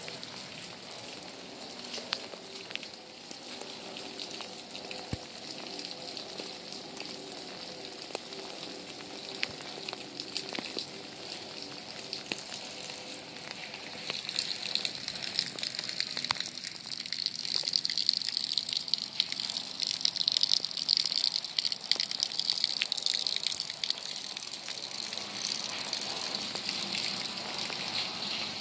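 Rainwater runoff flowing over a muddy dirt road and grass: a steady rushing hiss with scattered sharp ticks, which grows louder about halfway through.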